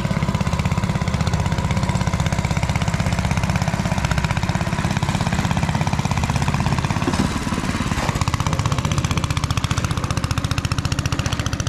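Small engine of a long-tail boat running close by, a rapid, even chugging beat; it gets a little quieter after about seven seconds.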